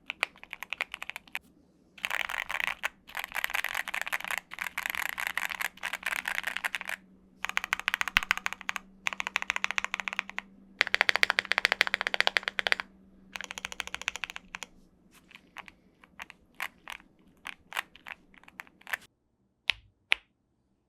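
Thera75 V2 75% custom mechanical keyboard being typed on: fast runs of keystrokes in bursts with short pauses, thinning to slow single key presses near the end, then two louder keystrokes.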